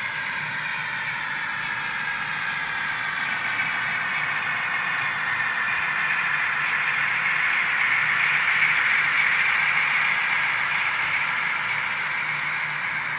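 N-scale Union Pacific model locomotive and its train running along the layout track: a steady rolling rattle that swells a little around the middle as the train comes closest.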